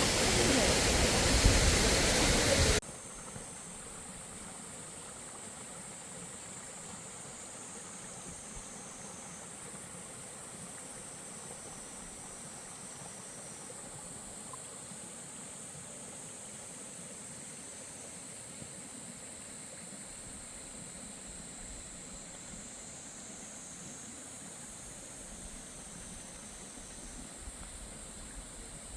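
Rushing waterfall water, a loud even hiss that cuts off abruptly about three seconds in, leaving only a faint steady high hiss.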